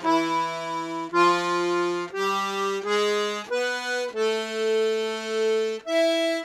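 Serenellini C#/D button accordion with three reeds (LMM) sounding the buttons of its half row one at a time: about seven single held notes in succession, each about a second or less, one held longer near the end.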